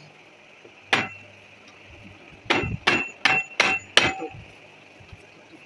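Hammer blows used to knock a PVC water-pipe joint together: one strike, then a quick run of five at about three a second. Each blow has a short metallic ring.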